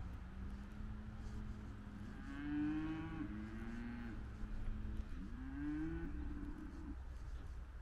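A large farm animal calling twice, two drawn-out calls of nearly two seconds each, the second sliding up in pitch at its start, over a steady low hum.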